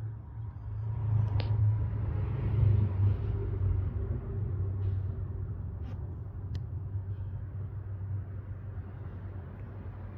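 A low, steady rumble that swells over the first few seconds and then eases off, with a few light clicks.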